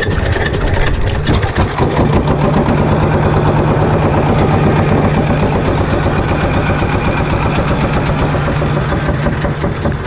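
Small wooden boat's inboard engine being hand-cranked, catching about two seconds in and then running steadily with an even, rapid beat.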